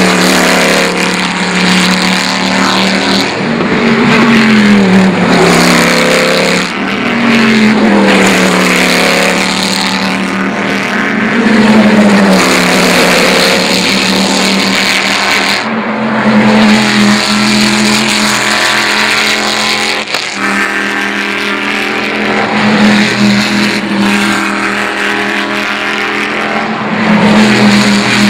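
Formula Le Mans prototypes' V8 racing engines at race speed, several cars going by one after another, the pitch dropping as each passes.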